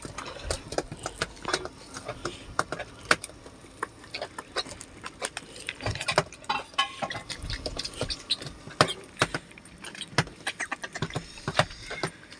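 Rapid, irregular clicks, taps and rustles as a fisherman hauls in a hand line over the side of a boat and handles a small caught fish.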